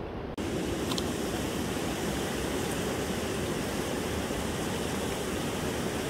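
Steady rushing of flowing river water, cutting in abruptly just after the start over a duller rumble.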